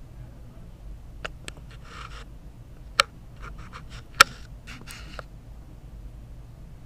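Footsteps on a hard floor: scattered sharp clicks with short scuffs between them, the two loudest clicks about three and four seconds in, over a steady low hum.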